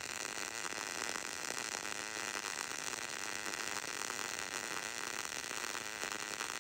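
MIG welding arc burning steadily: a continuous crackling hiss.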